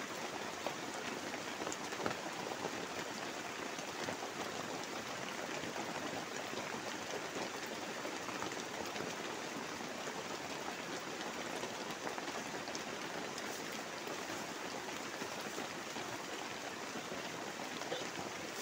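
Heavy rain falling steadily on a tarp shelter and the forest around it, a continuous hiss with faint scattered drop ticks.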